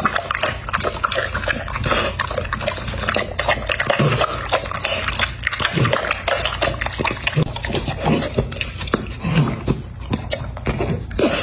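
French bulldog licking and slurping wet food from a glass bowl: a quick, irregular run of wet smacks and clicks of tongue and teeth against the glass.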